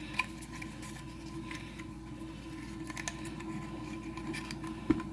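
Faint clicks and rustles of hands opening a miniature toy package, over a steady low hum.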